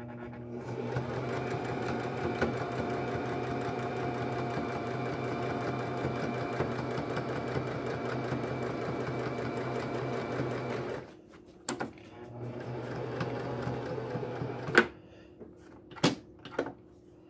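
Electric domestic sewing machine stitching through layered denim. It runs steadily for about eleven seconds, stops, then runs again for a couple of seconds, followed by a few sharp clicks.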